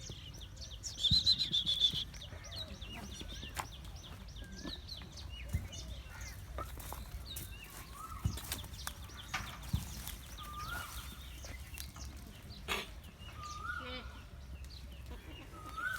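Goat pen ambience: goats bleating now and then, with several short calls later on, over small birds chirping and a few scattered knocks.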